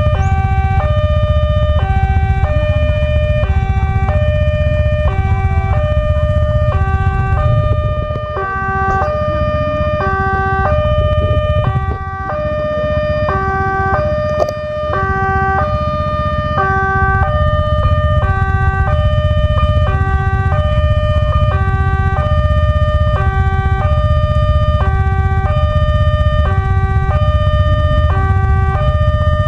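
Indonesian railway level-crossing warning siren: an electronic alarm sounding a looping sequence of stepped tones, low and high notes alternating over and over, the crossing's signal that a train is approaching. A steady low rumble runs underneath.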